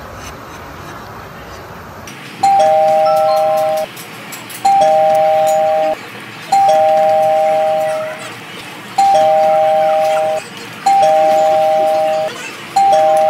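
Electronic two-tone chime like a doorbell ding-dong, starting about two and a half seconds in and repeating six times, one every two seconds or so; each time a higher note sounds with a lower one joining just after, both held about a second and a half and then cut off.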